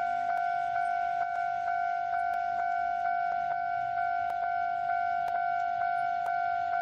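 Railway level-crossing warning bell ringing, a steady tone struck about twice a second.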